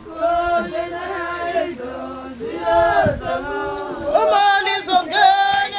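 Voices chanting a song, with long held notes.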